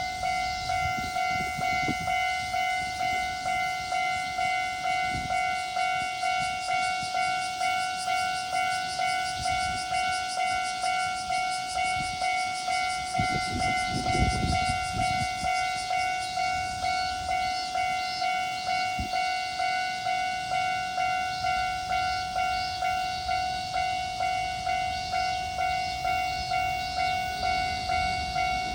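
Japanese level crossing's electronic warning bell ringing over and over at a steady, even rate. A low rumble swells briefly about halfway through.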